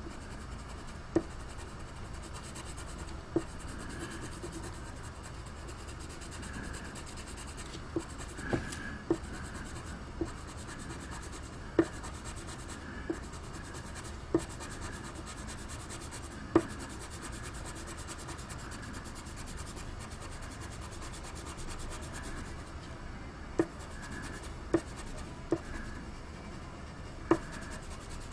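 Coloured pencil shading on paper: a steady scratching of pencil strokes, with irregular sharp ticks scattered through it.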